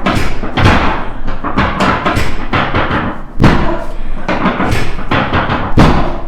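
Repeated dull thumps and knocks, roughly two a second at uneven spacing, loud and close.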